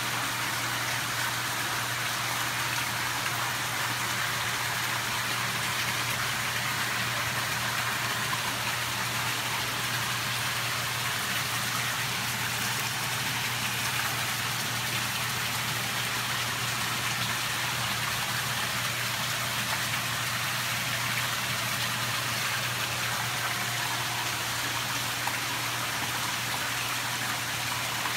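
Steady splashing and bubbling of water agitated in a koi holding tub, over a steady low hum.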